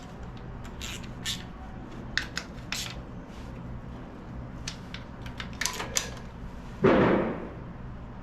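Light metal clicks and taps of an engine cover and its bolts being handled and fitted, with one louder, half-second scraping rush about seven seconds in.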